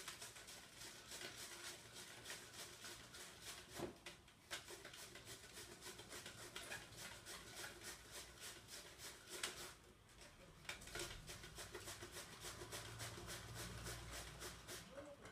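White cabbage being shredded on a hand grater into a plastic bowl: quick, even rasping strokes, faint, with a brief pause about two-thirds of the way through.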